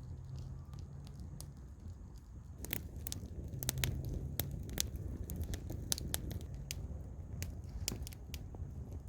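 Wood campfire crackling, with irregular sharp pops and snaps, busiest from a few seconds in, over a low rumble.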